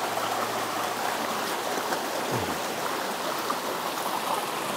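Small mountain creek running over rocks in shallow riffles and little cascades: a steady rush of flowing water.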